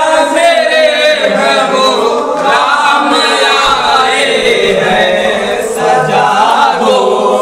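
A group of men chanting together loudly, many voices at once with no instruments.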